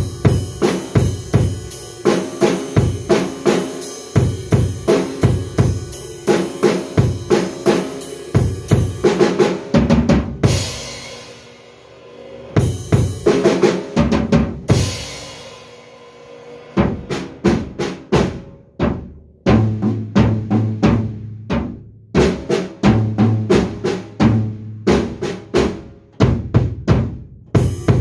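A drum kit is played in a rock groove of bass drum, snare and cymbals, with fills of quick strokes. Cymbal crashes ring out about ten and fifteen seconds in, and after that the beat turns sparser.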